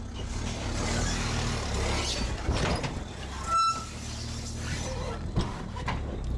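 SHERP all-terrain vehicle's diesel engine running with a steady low hum, its big tyres crunching over gravel. A short high beep sounds about halfway through.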